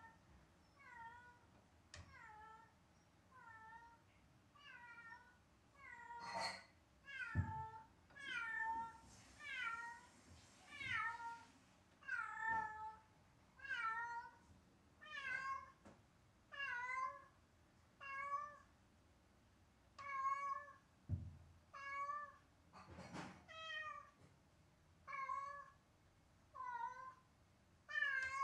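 A domestic cat meowing over and over, short calls that fall in pitch, about one every second or so. It is crying while left alone, which the owners fear is a sign of separation anxiety.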